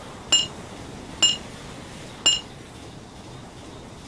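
Hammer striking a striking wrench (slogging spanner) on a bolt head: three sharp, ringing metallic clanks about a second apart.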